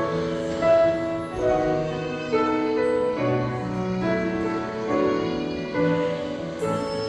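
Instrumental music of a worship song, a keyboard playing chords and melody notes that change about every half second to a second, with no singing.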